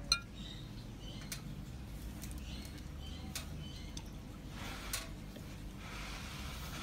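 Quiet room tone with a low hum, scattered faint light clicks and a few faint short high chirps.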